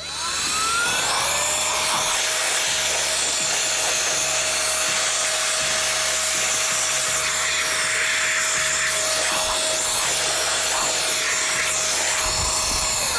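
ICANZUO TAD06 cordless battery air duster switching on, its motor spinning up with a rising whine over about a second, then blowing steadily with a high whine and rushing air. It winds down at the very end.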